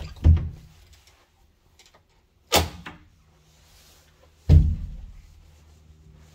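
Interior door latch and handle clicking and the wooden door knocking: three sharp knocks about two seconds apart, the last trailing off in the bare room.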